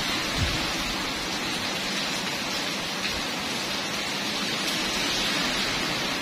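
A steady, even hiss like falling rain.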